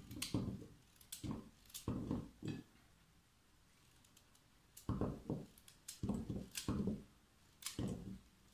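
A knife cutting a raw peeled carrot held in the hand, the chunks dropping into a stainless steel pot: a run of short crisp cuts and knocks, with a quiet gap of about two seconds in the middle.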